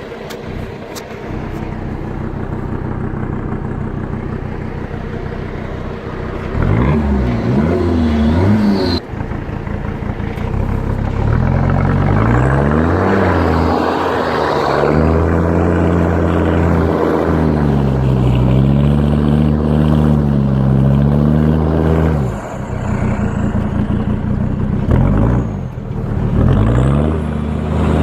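Mercedes G-Class off-roader's engine revving up and down in repeated surges, its pitch rising and falling, with a longer revving stretch in the middle. Between surges the engine runs lower and steadier, and the sound breaks off abruptly about nine seconds in.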